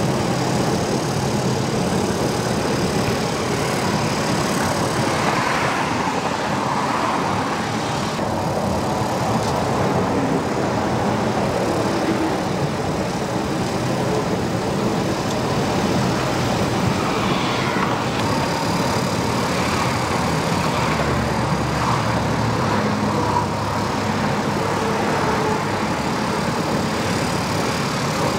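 Steady drone of road traffic and running vehicle engines, an even noise with no sharp events.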